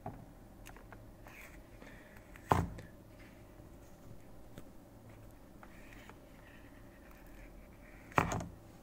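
Two sharp knocks about six seconds apart, with faint clicks and light rustling between them, from a hand handling the TomTom sat-nav units on a desk.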